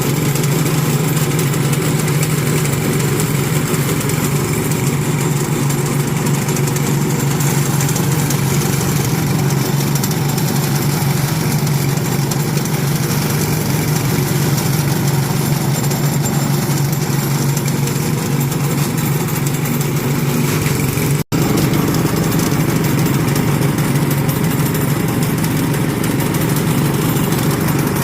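Engine-driven multipurpose shredder running steadily at high revs while shredding plant material for animal feed, with a steady low hum under an even mechanical noise. The sound drops out for an instant about three quarters of the way through.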